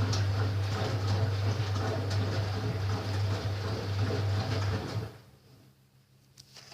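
Ariston Quadrifoglio LB476ST washing machine running in its prewash with a steady mains hum, cutting off suddenly about five seconds in. A couple of faint clicks follow near the end.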